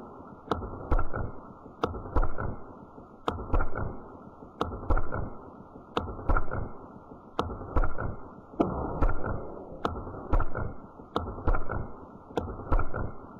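A slingshot fired again and again: sharp snapping cracks, a strong one roughly every one to one and a half seconds with smaller clicks between. A steady low rushing noise runs underneath.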